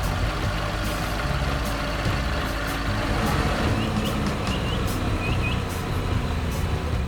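Heavy construction machine engine running, a steady noisy rumble, with a few faint high chirps in the middle.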